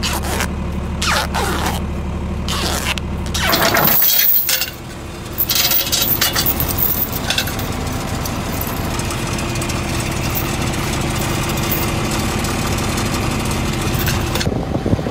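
An engine idling steadily, with clinks and scrapes of steel tow chain and pipe being handled. In the first few seconds there are ripping streaks of duct tape being pulled off the roll and wrapped tight around the pipes.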